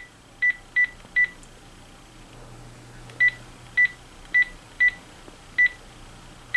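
Key-press beeps from a Panasonic KX-TG6521 cordless phone: short, identical high beeps as buttons are pressed, four quick ones in the first second and five more between about three and six seconds in.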